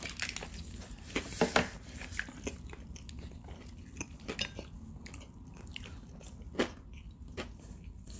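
Close-miked biting and chewing of fast food, with scattered crunches and small clicks; the loudest come about a second and a half in and again near six and a half seconds.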